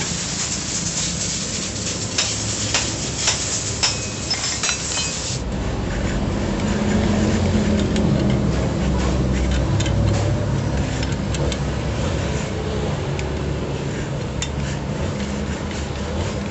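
A steel hammer striking a 39 mm wrench to break loose the centre nut of a scooter's CVT clutch and driven-pulley assembly: a series of sharp metal clanks, about five loud blows in the first five seconds. After that a low steady rumble continues under scattered light metal ticks as the assembly is handled.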